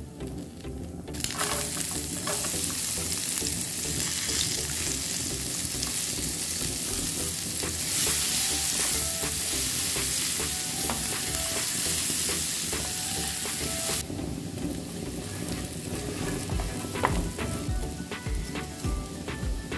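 Melted butter and minced garlic sizzling in a nonstick frying pan as they are stirred with a spatula. The sizzle starts about a second in and runs strongly, then falls off sharply about two-thirds of the way through to a fainter sizzle.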